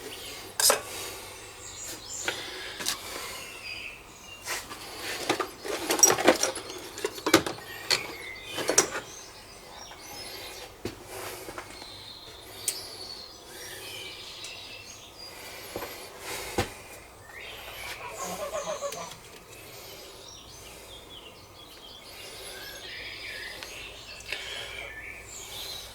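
Scattered sharp clicks and knocks of small metal valve parts being handled and worked loose from a Kubota three-cylinder tractor cylinder head, busiest in the first third and sparser later, with a short squeak around two-thirds of the way through. Birds chirp faintly in the background.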